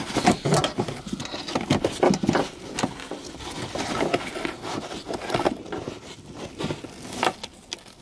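Irregular scraping and rustling of a nitrile-gloved hand rubbing on carpet while feeding the coilover damping-adjuster extender through the rear deck.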